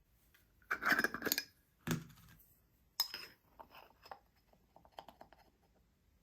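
Kitchen handling sounds: a rustling scrape, a dull knock, then a sharp clink that rings briefly, like glass or crockery, followed by a run of light taps and clicks.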